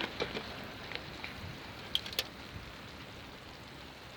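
Chicken sizzling on a grill, a steady soft hiss, with a couple of light clicks about two seconds in.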